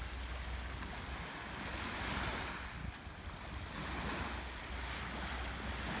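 Small sea waves washing in and draining back over a pebble shore, the rush swelling about every two seconds, with a steady low rumble of wind on the microphone.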